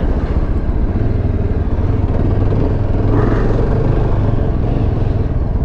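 Yezdi motorcycle's single-cylinder engine running at low speed, a steady low rumble with a brief swell about three seconds in.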